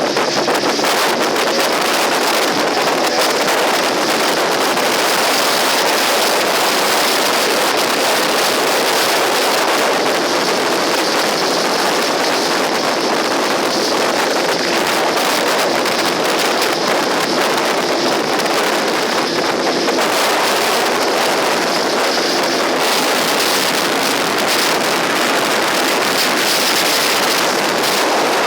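Boat under way: a steady, loud rush of wind buffeting the microphone over a Parsun T15 two-stroke outboard motor running at a constant speed, with water noise.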